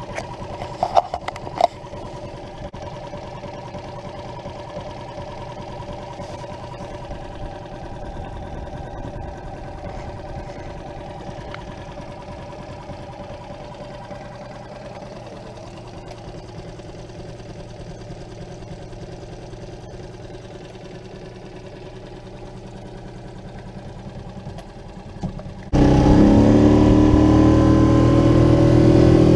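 6 hp four-stroke Mariner outboard motor running steadily, with a few clicks near the start. Near the end it suddenly gets much louder and its pitch climbs as it speeds up.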